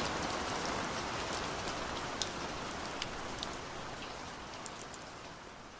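Steady rain with scattered sharp drop ticks, slowly fading out.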